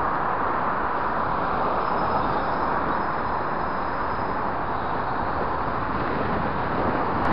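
Steady rushing wind and road noise on a bike-mounted camera's microphone while riding a road bike, with car traffic passing alongside.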